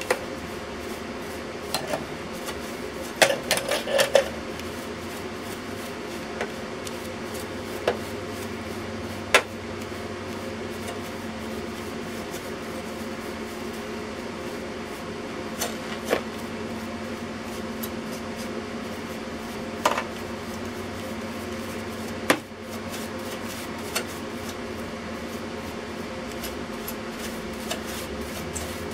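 Scattered light taps and knocks of a brush working over the rusted top of a metal electrical box, with a quick cluster of knocks about three seconds in, over a steady background hum.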